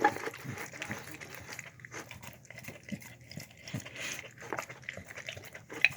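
A dog eating chicken with eggs and rice: irregular wet chewing and smacking, with a sharper click right at the start and another near the end.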